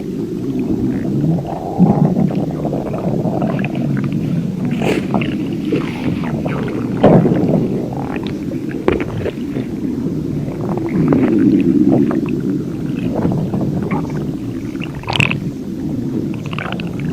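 Hungry human stomach growling: a continuous low rumble broken by short gurgles and squeaks throughout.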